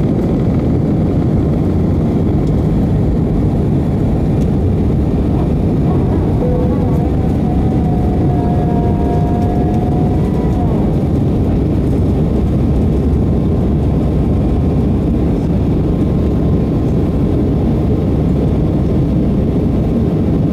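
Airbus A319's jet engines at takeoff thrust heard from inside the cabin over the wing: a loud, steady roar through the end of the takeoff roll, liftoff and the initial climb. A faint whining tone sits under the roar for about four seconds near the middle.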